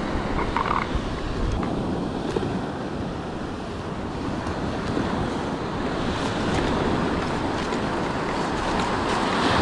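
Ocean surf breaking and washing up a sandy beach, with wind buffeting the microphone; the wash swells a little near the end.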